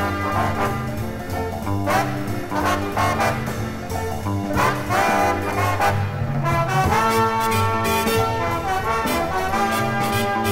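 Stereo LP recording of a late-1950s jazz TV-theme score: a brass-led jazz orchestra with trombones and trumpets playing the theme, with sharp ensemble hits and held brass chords.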